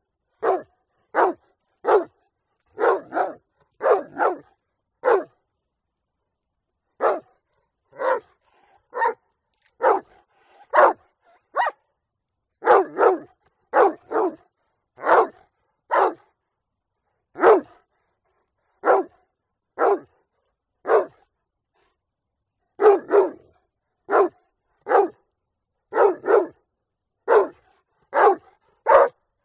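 A dog barking over and over, single barks and quick pairs about a second apart, with a couple of short pauses.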